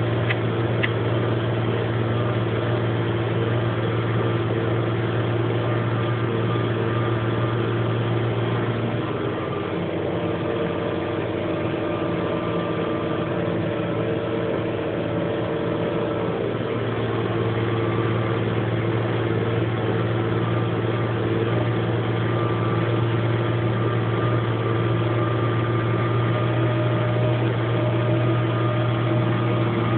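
Same Laser 150 tractor's air-cooled diesel engine running steadily under load while pulling a disc harrow, heard from inside the cab as a continuous low drone. For several seconds in the middle the low drone eases and its pitch shifts, then it settles back.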